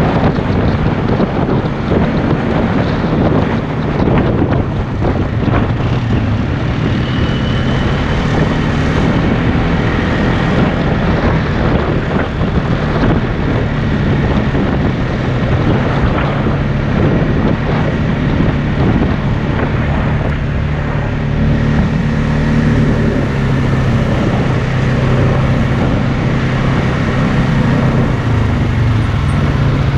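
ATV engine running steadily while riding a dirt trail, with wind buffeting the microphone and frequent small jolts and rattles from the rough ground.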